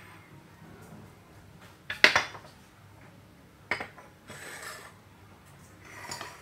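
Kitchenware clinking as it is handled: a metal ladle and ceramic plates and bowls knocking together. There is a sharp clink about two seconds in, a lighter one a little before four seconds, and short scraping sounds in between.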